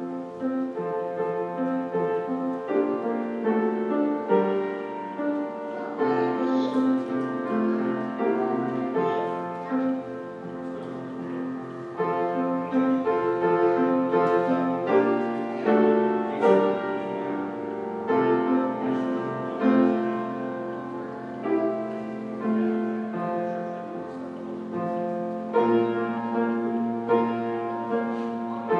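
Solo piano playing a slow piece of chords and moving melody notes.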